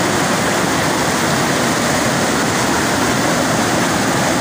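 Flood-swollen, muddy river rushing over rocks in rapids: a steady, loud rush of water with no let-up.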